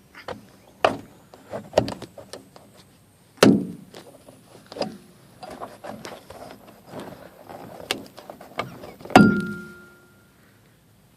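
Irregular clicks, knocks and rattles of parts and tools being handled during minivan interior trim work, with two louder thunks. The second, about nine seconds in, is a metallic clank that rings briefly.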